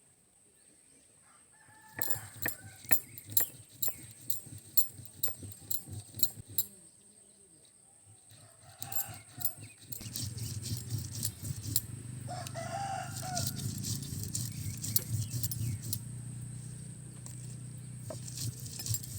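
Grinding on a flat stone with a hand stone: sharp knocks a few times a second as ginger and green chillies are crushed, then from about halfway a steady low rumble as soaked red lentils are ground back and forth. A chicken clucks twice.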